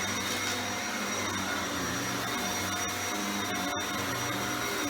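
Shark Rotator Powered Lift-Away upright vacuum cleaner running steadily on carpet, a constant motor whine with a steady high tone. Its low hum swells and dips every second or so as the vacuum is pushed forward and back.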